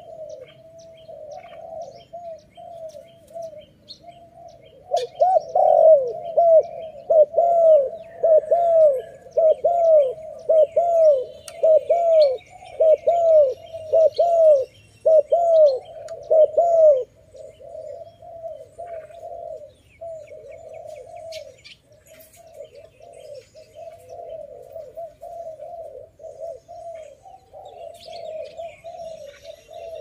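Spotted dove cooing: a run of loud coos in quick succession, each note rising then falling, from about five seconds in until about seventeen seconds. Fainter cooing goes on before and after, with faint high chirps of small birds.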